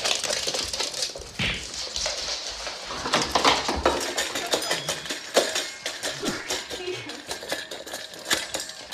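Dog eating from a stainless steel bowl: the metal bowl clinks and rattles over and over as the dog noses and gulps into it.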